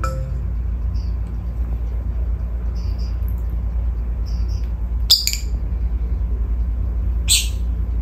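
Small pet parrots chirping: a few short, high chirps, then two louder calls about five and seven seconds in, over a steady low hum.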